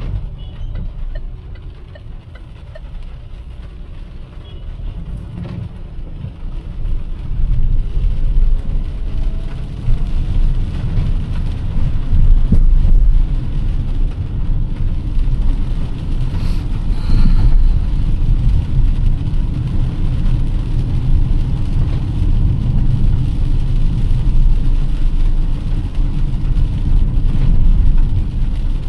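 A car driving: a steady low engine and road rumble that grows louder about a quarter of the way in, with a faint rising engine note as it picks up speed.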